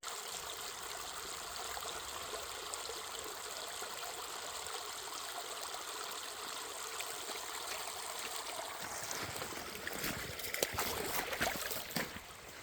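Small stream of water running steadily with a trickling sound. From about three seconds before the end, a series of knocks and scuffs joins it.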